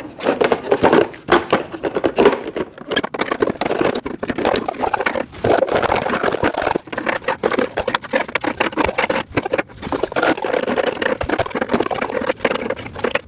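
Parts of a storage rack being handled and fitted together: a dense run of clattering taps, knocks and scrapes.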